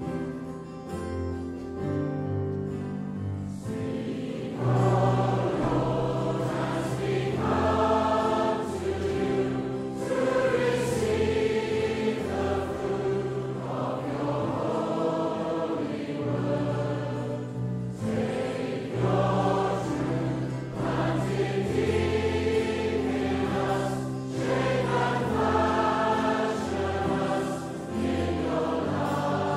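Congregation singing a hymn together to instrumental accompaniment; the voices come in about four seconds in, after a short instrumental lead-in.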